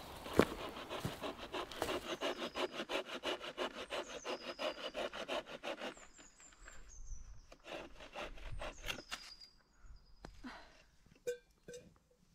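Hand saw cutting through a dead branch laid across a log, in quick even strokes about five a second, then slower and sparser. Birds chirp faintly over it, and there is a short metallic clink near the end.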